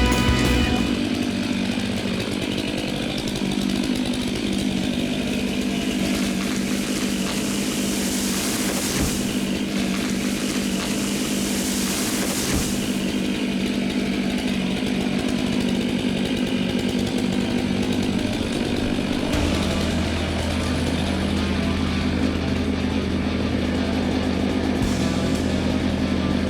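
Chainsaw running steadily, with a harsher, brighter stretch between about six and twelve seconds in.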